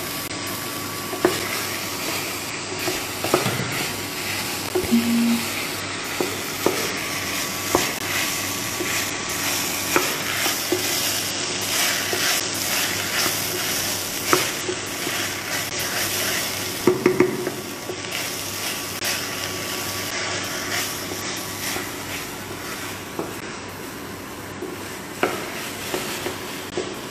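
Chopped vegetables (green chili and yellow squash with tomato paste) sizzling in a hot pan while they are stirred, with scattered clicks and knocks of the stirring utensil against the pan.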